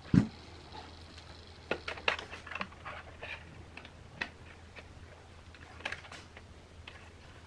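Scattered light clicks and knocks of small parts being handled, with a heavier thump right at the start, over a faint steady low hum.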